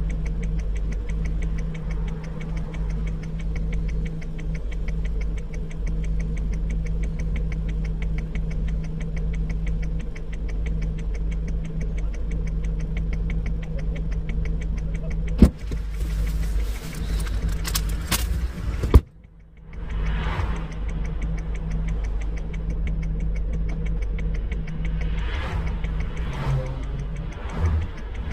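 A vehicle's engine idling steadily with a fast, even ticking, heard from inside a car cabin. Just after the halfway point there is a sharp click, a few seconds of rustling, another sharp click and a moment's silence before the engine sound returns.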